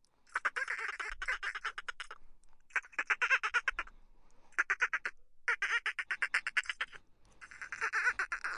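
Dolphin burst-pulse calls: five bouts of rapid, quacking pulse trains, each about half a second to two seconds long, with short pauses between them.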